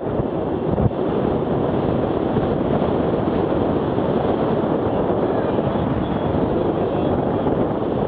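Wind rushing over the microphone of a camera carried on a moving road bike, a steady noise with no break, with one short knock about a second in.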